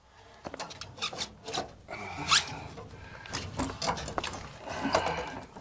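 Irregular scraping and rasping against PVC pipe with scattered clicks and a short squeak about two seconds in.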